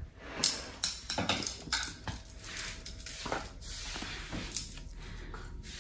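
Toy rings clattering as they are tossed into a bin: a string of light knocks and rattles, quick in the first couple of seconds, then more spaced out.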